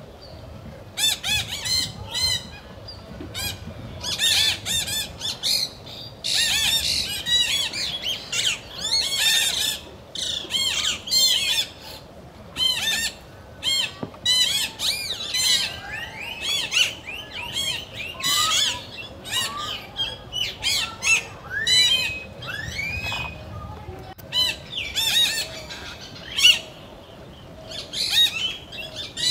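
Wild birds calling in a dense chorus: many short, sharp calls in quick runs, with brief lulls about twelve seconds in and again near the end.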